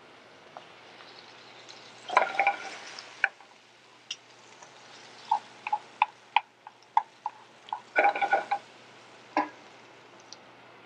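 Metal tongs clicking and scraping against a stainless sauté pan of green beans and grape tomatoes on a gas range, over a light steady sizzle. There are two longer clattering scrapes, about two seconds in and again near eight seconds, with a run of sharp ringing clicks between them.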